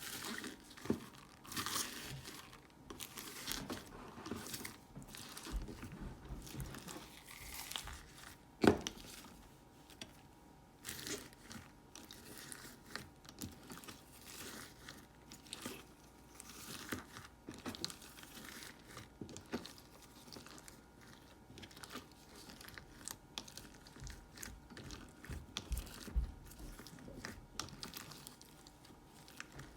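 Slime being squeezed and stretched by hand, making irregular sticky crackles and clicks, with one louder snap about nine seconds in.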